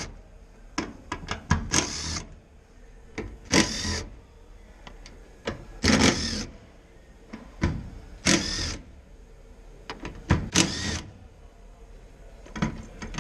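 Small power tool with an 8mm socket whirring in about five short bursts, undoing the nuts of a car's in-tank fuel pump cover, with small clicks between the bursts.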